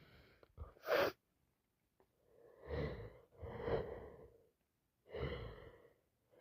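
A woman with a heavy cold sniffing sharply once, then taking three slow, shaky, voiced breaths between sneezes.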